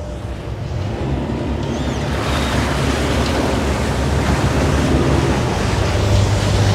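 A sailing yacht's inboard diesel engine running under power with a steady low hum, growing gradually louder. From about two seconds in, the propeller wash churning behind the stern adds a loud rushing of water.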